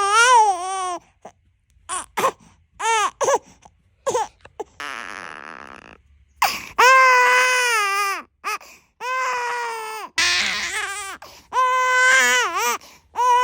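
A 14-week-old infant crying after vaccination injections: short cries at first, then long, loud wails with brief pauses for breath between them.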